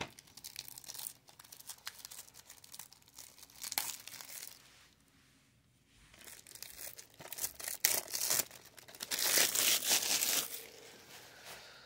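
Plastic shrink wrap crinkling and tearing as it is peeled off a DVD case, in scattered crackles. It stops briefly about five seconds in, and the crinkling is loudest near the end.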